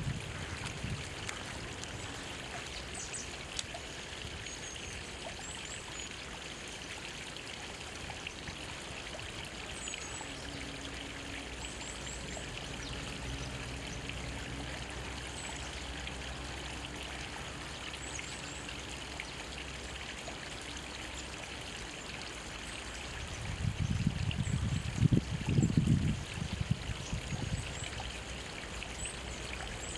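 A small mountain stream trickling and splashing between rocks, steady throughout, with faint short bird chirps now and then. Around 24 to 27 seconds in, a louder low rumbling rises over the water and fades again.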